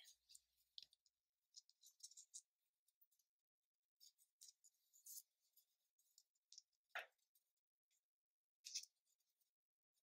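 Near silence, with faint rustling and light ticks of fingers handling yarn while tying two ends into a knot, and one sharper click about seven seconds in.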